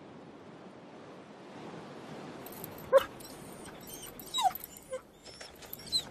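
Chained Greenland sled dog whimpering: from about two and a half seconds in, a few short, high whines that slide down in pitch, the loudest near three seconds, among light rattles of its chain.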